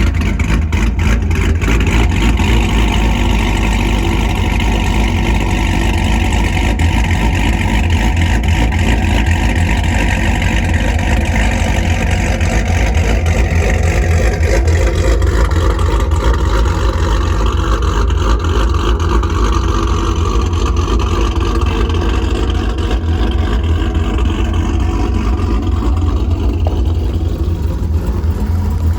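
Modified Pontiac G8 V8 running with a loud, deep exhaust rumble; its engine note falls gradually in the second half as the car slows.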